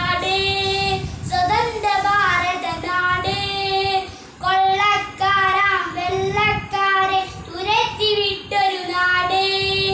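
A young boy singing solo in long held notes, with a brief pause between phrases a little after four seconds in.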